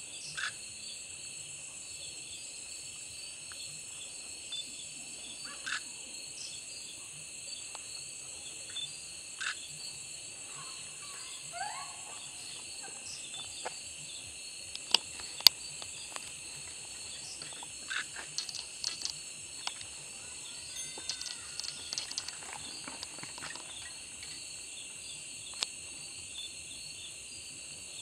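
Steady chorus of crickets and other insects, a high continuous trilling, with scattered short clicks and two sharper clicks about halfway through.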